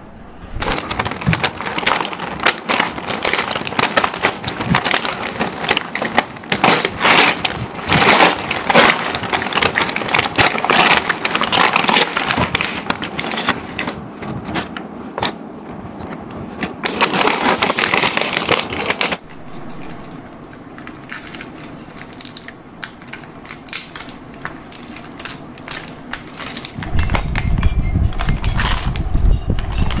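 Brown paper takeaway bag being handled and opened, crinkling and rustling loudly for most of the first twenty seconds. After that comes a quieter crackle of plastic food wrapping being handled, with a low rumble joining near the end.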